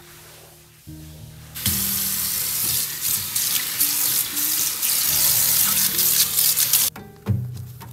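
Water running from a tap into a sink, turned on about a second and a half in and shut off abruptly about a second before the end, over soft background music.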